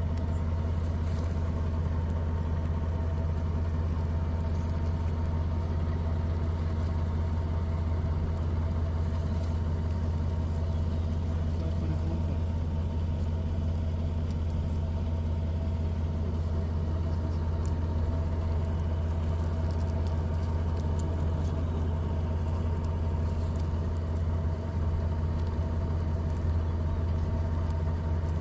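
A steady low mechanical drone, like an engine running at idle, with a few faint steady higher tones over it and no change in level.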